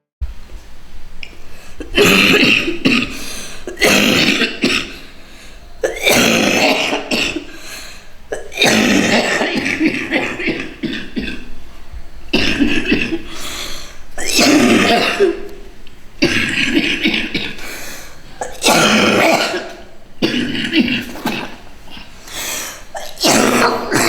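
A young woman coughing hard in repeated fits, one every two seconds or so, some fits running on for a second or two. It is the persistent cough she has had for about two months and says hurts her chest.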